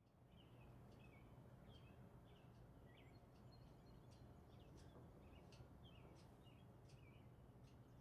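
Faint ambience of small birds chirping in short repeated calls over a low steady hum.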